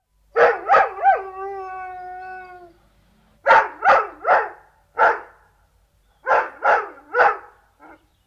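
Deerhound barking in three bursts of three or four deep barks, about eleven in all. The first three barks run into a long held note that falls slightly in pitch.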